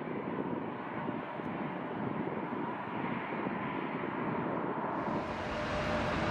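Twin-engine jet airliner's engines heard from behind as it rolls away down the runway: a broad roar with a faint steady whine. About five seconds in, this gives way abruptly to a heavy wheeled snow-removal loader driving past, a deep rumble with a steady tone.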